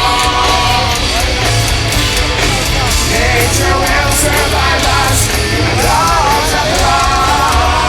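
Live heavy rock band playing loud, with heavy drums and cymbals under a sung vocal line.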